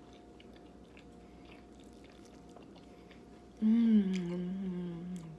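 Quiet chewing, then about three and a half seconds in one loud, drawn-out burp lasting nearly two seconds, its pitch sinking slightly.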